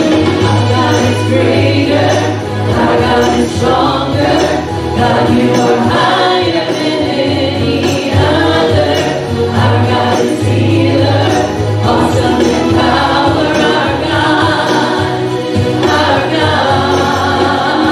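Church worship band playing with a congregation singing, a steady bass and a tambourine-like jingle in the mix.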